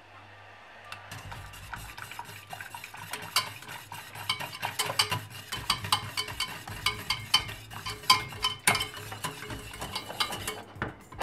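A wire whisk stirring fast in a stainless steel pot, with rapid, irregular clinks as its wires strike the pot. Pomegranate syrup and cornstarch slurry is being whisked into boiling water. The clinking starts about a second in.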